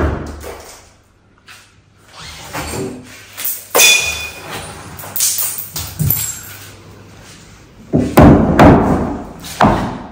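Hammer and chisel blows on a tiled oven hood of thin brick, knocking the tiles and brick loose. The blows come irregularly, with a quick run of heavy blows about eight seconds in.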